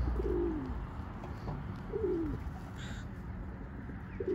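Feral pigeons cooing: three soft, falling coos about two seconds apart.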